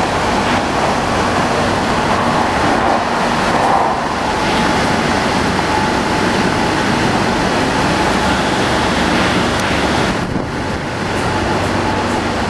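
Madrid Metro train in motion: a loud, steady rumble and rush of running noise, with a faint steady whine in the middle stretch and a short dip in level near the end.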